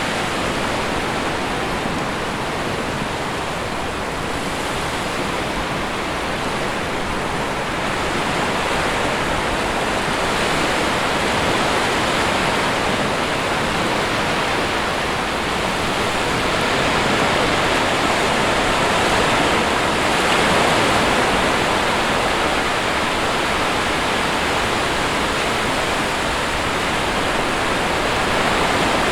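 Sea waves on a shore: a continuous rush of surf that slowly swells and eases.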